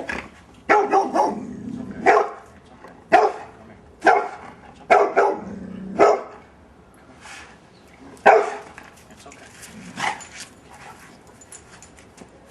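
A fear-aggressive dog barking in short, sharp barks, about eight of them. The first six come roughly a second apart, then two more follow after longer gaps, the last about ten seconds in.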